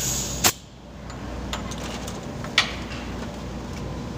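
Compressed air hissing briefly from an air nozzle pressed into the hub of the blister machine's film-roll shaft, ending in a sharp click. Another sharp click comes about two seconds later, over a steady low machine hum.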